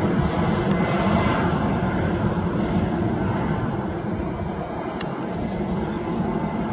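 Airbus A319-111's CFM56 jet engines at takeoff power, a dense rumble slowly fading as the airliner draws away. Twice a faint high tone ends in a sharp click.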